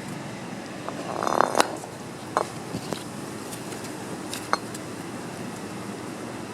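Metal clinking a few times, with a cluster of light clinks and knocks about a second in and single sharp clinks later, over a steady mechanical hum.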